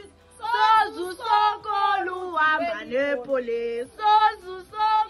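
Women singing, a melody with notes that slide and are held.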